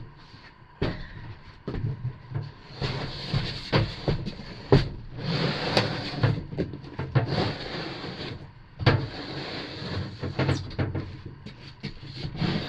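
Floor panels being slid, scraped and knocked into place inside a van: irregular rough scraping with many sharp knocks and bumps.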